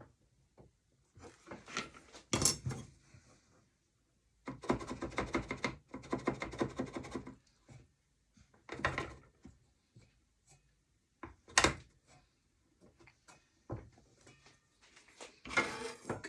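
Wooden knocks and clicks, with a few seconds of rapid rattling scraping of wood on wood, as the old sewing-machine drawer is handled and slid on its repaired runner.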